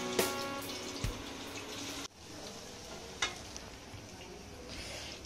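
Moong dal fritters deep-frying in hot oil, a steady sizzle, with a couple of light clicks of the slotted spoon in the pan; the sizzle drops out briefly about two seconds in. Background guitar music fades out in the first half-second.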